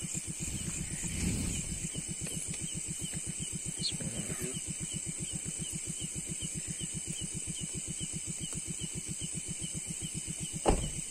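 An engine idling with a steady, fast throb, over the constant high chirring of night insects. One loud thump near the end.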